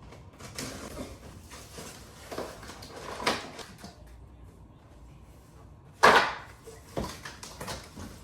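Cardboard box of an espresso machine being opened by hand: flaps and packing rustling and scraping in irregular strokes, with one sharp, loud rasp about six seconds in.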